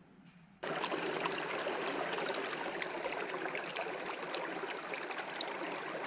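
Shallow creek running over rocks: a steady rush and trickle of flowing water that starts abruptly about half a second in.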